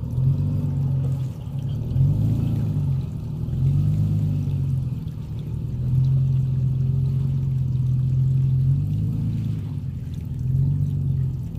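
Pickup truck engine revving up and down while crawling off-road, its pitch rising and falling several times and holding steady for about three seconds past the middle.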